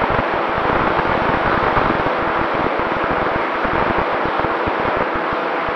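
Steady rush of wind noise on the onboard camera of a Mini Talon FPV plane, with irregular low buffeting rumbles on the microphone.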